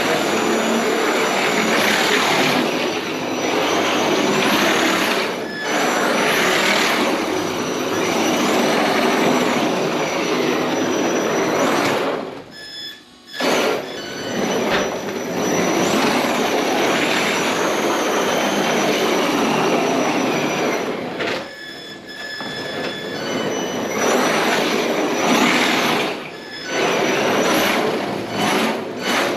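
Sakura D4 rear-wheel-drive RC drift car being driven: a high electric-motor whine that rises and falls with the throttle over the hiss of the tyres sliding, cutting out briefly twice.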